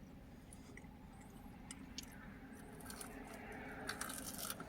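Faint chewing and mouth sounds of someone eating, with small clicks and rustles that grow a little busier near the end.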